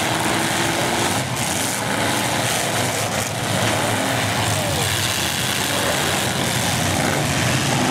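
Engines of several full-size demolition derby cars running and revving together on the track, a steady din with some voices from the crowd mixed in.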